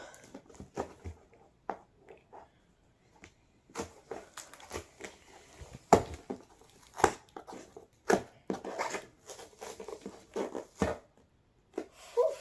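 Plastic and cardboard toy packaging crinkling, snapping and tearing in irregular bursts as it is pried and peeled open with scissors, with a few sharper cracks in the middle.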